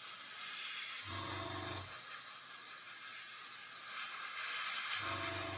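Airbrush spraying thinned acrylic paint: a steady hiss of air and paint. A short low hum comes in twice, about a second each time.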